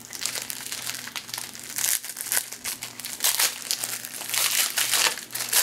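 Wrapper of a trading card pack crinkling and crackling in a run of irregular rustles as it is handled and opened.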